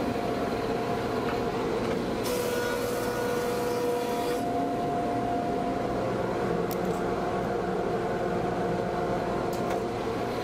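A combination jointer-planer running as a thickness planer, a steady machine hum. About two seconds in, a sharp hissing cut lasts roughly two seconds as a maple part feeds through. After the cut the machine's running tone steps up in pitch.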